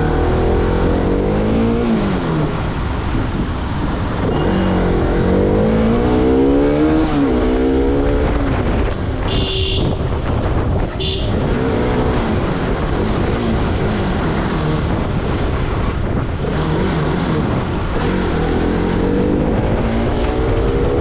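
Bajaj Pulsar RS200's single-cylinder, liquid-cooled 200 cc engine on its stock exhaust, revving up and dropping back again and again as the bike is ridden in low gear. Two short high beeps sound near the middle.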